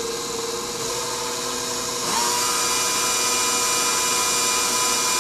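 KitchenAid Professional 600 stand mixer running with no attachment, its motor and freshly repaired gear drive making a steady whine that steps up to a higher speed and gets louder about two seconds in.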